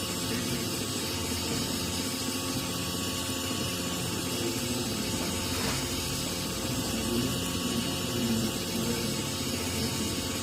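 3D printer running a print: its stepper motors whine in shifting pitches as the print head moves, over a steady fan hiss.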